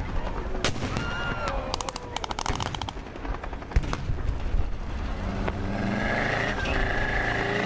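Blank gunfire from a mock battle: single shots and a short rapid machine-gun burst about two seconds in. In the second half, a military vehicle's engine runs steadily.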